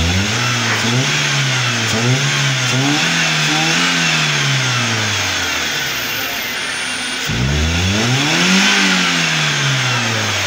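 Toyota Vitz engine, running with the hood open, revved up and let fall back twice: a slow rise and fall over the first six seconds, then a second rev starting about seven seconds in.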